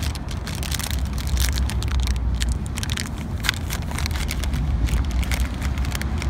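A small plastic-film M&M's candy bag being torn open and handled, crinkling in a quick run of sharp crackles, over a steady low rumble.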